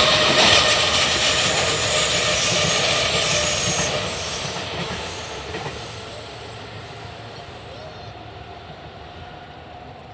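Container wagons of a JR Freight train rolling past on the rails, the running noise fading steadily as the train moves away. A thin high tone dies out about eight seconds in.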